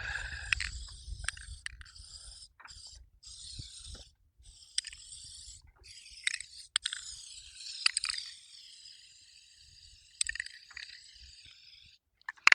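Paintbrush bristles stroking paint onto cardboard: a run of dry scraping strokes, some short and some a second or two long, with brief pauses between them.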